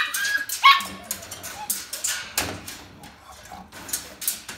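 Presa Canario puppy whining, two short high yelps right at the start, followed by a run of sharp clicks and scratches of paws and claws against the wire kennel.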